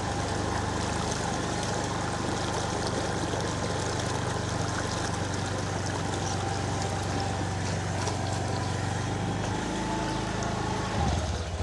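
Motorcycle engine running steadily at low speed, with the wash and splash of the tyres wading through flood water. About ten seconds in, the engine note shifts.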